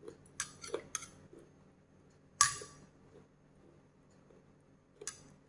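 Metal spoon clinking against a small glass bowl of dipping sauce: a few light clicks in the first second, a louder ringing clink about two and a half seconds in, and another near the end.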